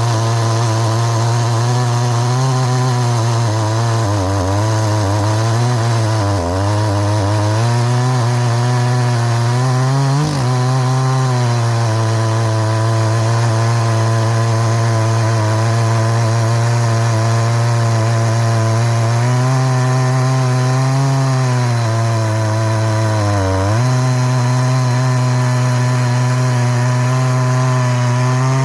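Chainsaw running at full throttle, ripping lengthwise through a log on a 36-inch Husqvarna C85 chain freshly filed into a milling chain. The engine note holds steady, sagging and recovering a few times as the chain bites harder, most sharply about 6, 10 and 23 seconds in.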